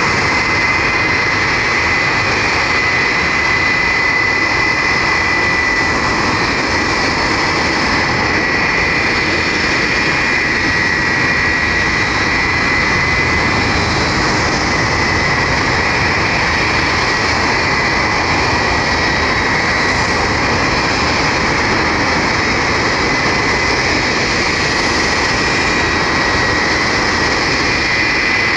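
Jet aircraft engines running loud and steady, a dense rush of noise with a high whine held on one pitch.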